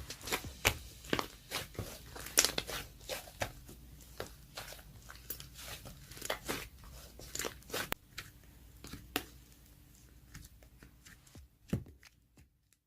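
Slime being squished and stretched by hand, giving off irregular sticky clicks and pops that thin out after about eight seconds, with one louder pop near the end.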